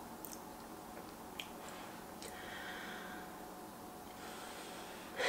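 A person blowing twice on a forkful of mac and cheese to cool it, two soft breaths a second or so apart, with a few faint mouth clicks before them.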